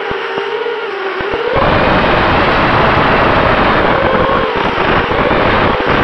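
FPV quadcopter's electric motors and propellers whining, with rushing air on the onboard camera's microphone. The sound thins and its pitch dips for the first second and a half as the throttle eases off, then picks back up fuller and steadier.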